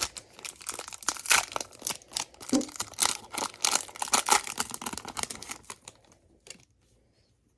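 Foil wrapper of a Pokémon TCG booster pack being torn open and crinkled: a dense run of crackles that stops about six seconds in.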